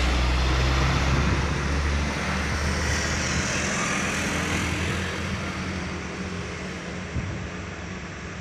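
A heavily loaded sugarcane truck's diesel engine runs with tyre noise as the truck pulls away, the sound fading steadily as it goes.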